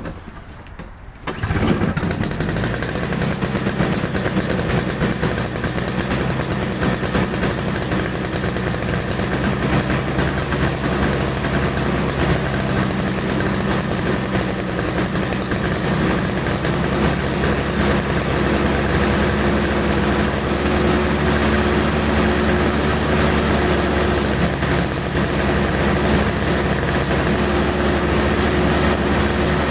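Craftsman snowblower's small gas engine catching on a cold start at 8 degrees, choked and primed, about a second and a half in, then running steadily.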